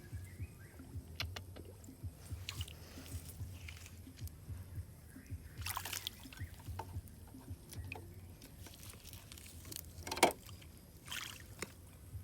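Shallow water sloshing and splashing in short irregular bursts, with one sharper splash about ten seconds in.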